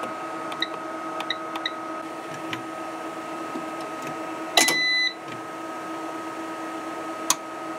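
Dell J727N 2700 W UPS being worked from its front panel while its output is switched on. Button presses give short beeps. About halfway there is a sharp click and a half-second beep, and another click comes near the end. A steady electrical whine runs underneath.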